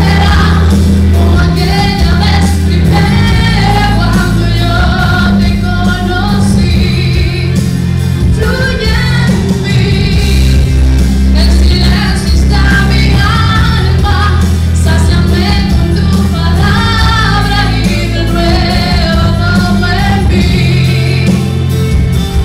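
Live Spanish-language worship music: a church band with heavy, sustained bass playing under sung melody.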